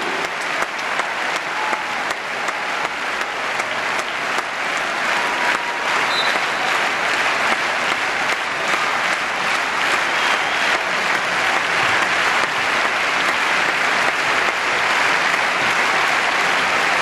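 A large crowd applauding, a dense steady clatter of clapping that grows a little louder over the first few seconds and then holds.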